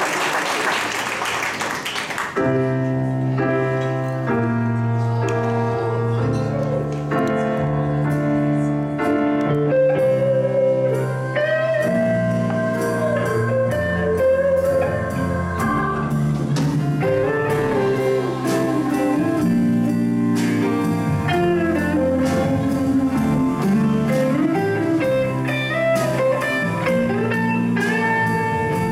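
Applause ends about two seconds in and a slow blues number begins: held Hammond organ chords, joined from about ten seconds in by an electric guitar lead with bent, gliding notes.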